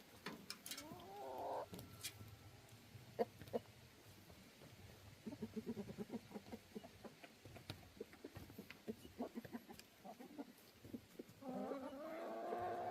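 Chickens clucking and calling softly: a short rising call about a second in, a run of quick clucks in the middle, and a longer drawn-out call near the end.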